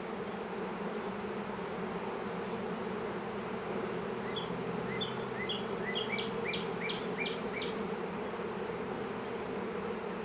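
Honey bee swarm buzzing, a steady droning hum of thousands of bees clustering on a tree limb. A bird's short repeated chirps come in about four seconds in, roughly two a second, and stop about four seconds later.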